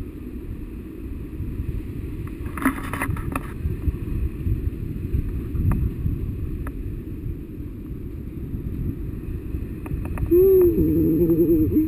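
Wind from a paraglider's airspeed buffeting the camera microphone, a steady low rumble. A brief rustle comes about three seconds in, and a voice sounds near the end.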